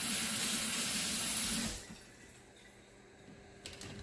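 Water running in a steady rush that cuts off abruptly about two seconds in, followed by a few faint clicks near the end.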